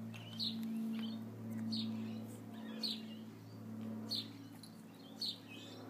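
Small dog whimpering in short, high-pitched squeaks about once a second, a sign of fear, over a steady low hum.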